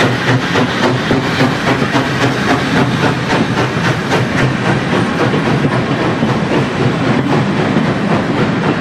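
Vintage passenger carriages of a steam train rolling past close by, their wheels clicking over the rail joints in a steady clickety-clack.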